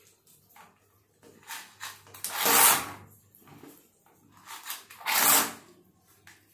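Green transparent plastic toy airplane moved on a tabletop, giving two short mechanical whirs of about half a second each, about two and a half seconds apart, with light knocks and clicks of handling between.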